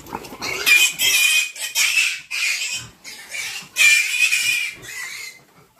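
Piglet squealing loudly as it is grabbed and held, a rapid run of about half a dozen harsh, shrill squeals, each under a second long.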